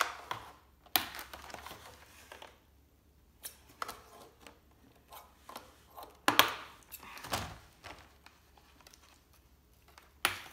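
Scissors snipping and plastic and cardboard packaging rustling and knocking as toy blasters are cut free from their box: scattered clicks and crinkles, with a couple of louder thunks about a second in and past the middle.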